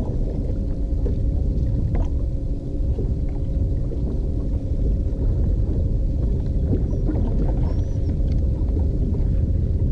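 Steady low rumble of wind and water on an open bass boat, with a faint steady motor hum and a few light clicks.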